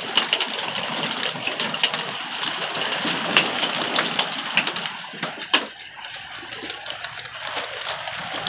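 Hail and rain hitting the roof of an RV, heard from inside: a steady hiss of rain with many sharp ticks of hailstones. It grows a little quieter about five seconds in.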